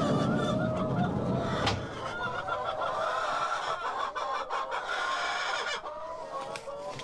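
A flock of backyard hens clucking and squawking all at once, many overlapping calls, as they clamour at feeding time. A low rumble sits under the first two seconds, with a single click about two seconds in.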